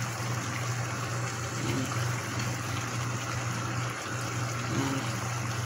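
Steady rushing hiss over a constant low hum: the running noise of a kitchen appliance by the stove.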